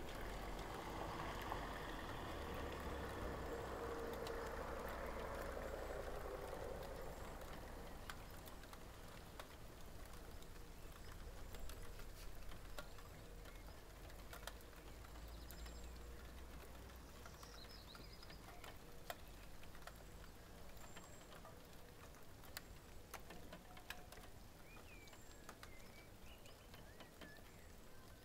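Rumble of thunder fading away over the first several seconds. Then sparse raindrop ticks and patter, with a few faint bird chirps.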